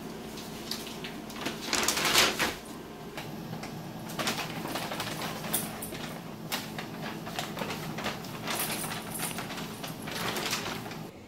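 Brown paper bag crinkling and rustling as a German Shepherd pushes its nose into it and pulls at it with its mouth, in repeated bursts of rustling, the loudest about two seconds in.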